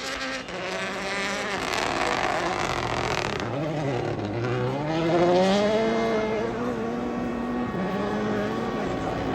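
Rally car's engine at full throttle. The revs fall away about three and a half seconds in as it lifts off, then climb back and hold high. It is loudest about five seconds in and eases off near the end.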